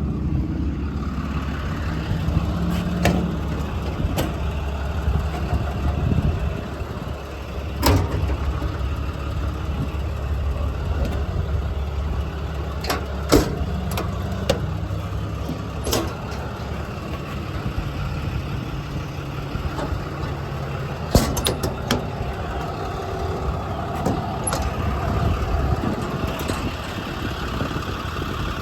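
Ram 5500's 6.7 L Cummins diesel idling steadily, with scattered sharp clicks and knocks over it.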